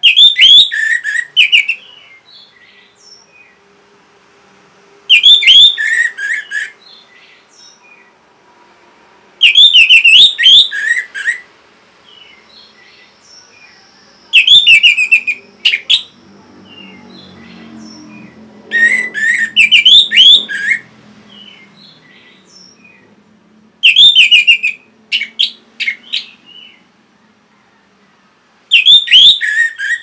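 Orange-headed thrush singing in full voice: a loud phrase of rapid, sliding whistled notes about every five seconds, with soft short notes in the gaps.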